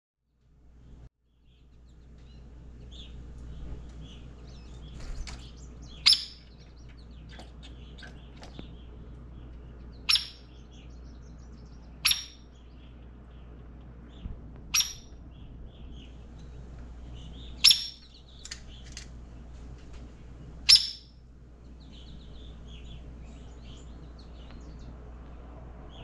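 Hairy woodpecker giving sharp single calls, six of them a few seconds apart, with fainter bird chirps in between over a low steady hum.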